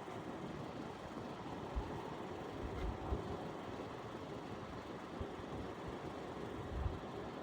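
Steady rumble and hiss of a vehicle running, with irregular low thumps.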